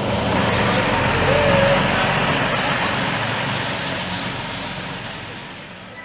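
Diesel engine of a Mercedes-Benz Unimog truck running as it drives slowly past. It grows louder about a second and a half in, then fades as it moves off.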